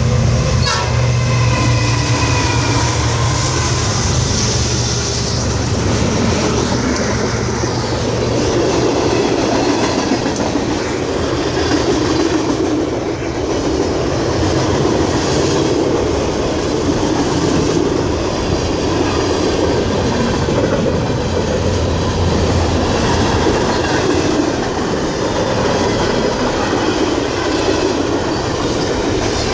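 CN freight train passing. The diesel locomotives' low engine drone is strongest in the first few seconds and fades as the freight cars roll by with a steady rumble of wheels on the rails.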